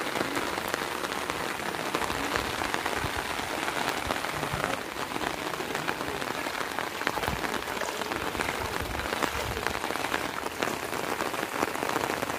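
Steady rain falling: an even hiss with a dense crackle of individual drops striking close by.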